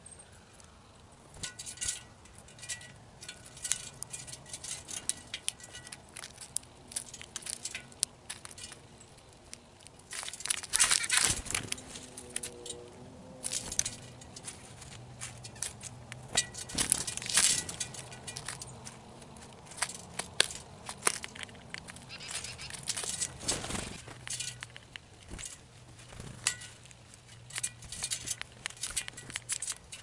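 Small birds pecking and hopping in plastic trays of mixed seed, beaks and scattered seed giving irregular sharp clicks and rattles that come in bouts.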